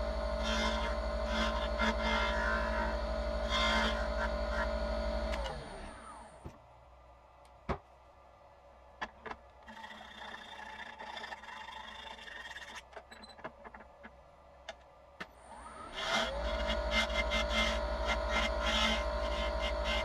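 A wood lathe runs while a turning tool scrapes and cuts a spinning stabilized oak pen blank. About five and a half seconds in, the lathe is switched off and its hum falls away as it winds down. A few light clicks and taps follow while it is stopped. Around sixteen seconds it starts again, its hum rising back to speed, and the cutting resumes.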